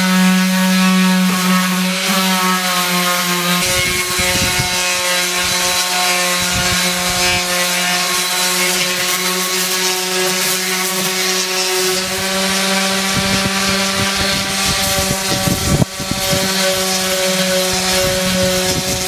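Electric orbital sander running with a steady hum, its sanding pad rubbing over weathered teak; from a few seconds in, uneven scuffing of the pad on the wood rides over the hum.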